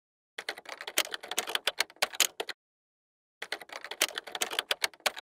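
Typing sound effect: rapid key clicks in two runs of about two seconds each, separated by a pause of about a second. The clicks match text being typed out on screen.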